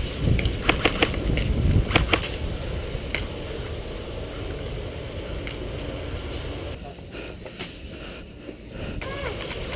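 Hurried footsteps crunching across gravel, with low wind rumble on the microphone and several sharp clicks in the first two seconds and one more about three seconds in. The rest is a steady outdoor rustle that turns duller for a couple of seconds near the end.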